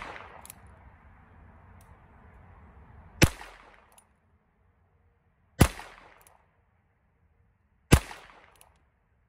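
Three .22 LR revolver shots from a Ruger Wrangler single-action, about two and a half seconds apart, each a sharp crack followed by a short echo.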